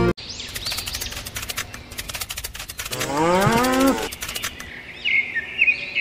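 A cow moos once, about three seconds in, a single call of roughly a second that rises and then falls in pitch. Birds chirp near the end.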